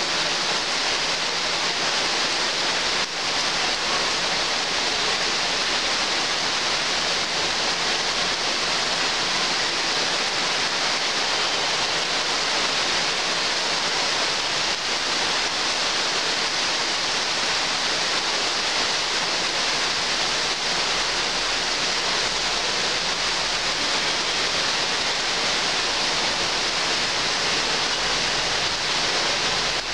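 Heavy rain pouring steadily onto trees and foliage, a continuous even hiss.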